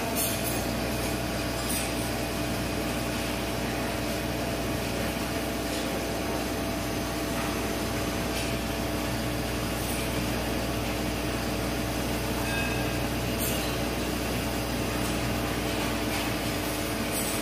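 Metal lathe turning a steel shaft end down to a cone point with an insert cutting tool: a steady machine hum with constant tones and a few faint ticks.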